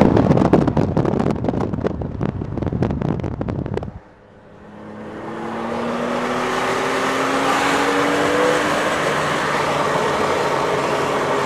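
Loud wind buffeting at an open car window at motorway speed, cutting off suddenly about four seconds in. After that, from inside the car, the engine's note slowly climbs as the car accelerates, over steady road noise.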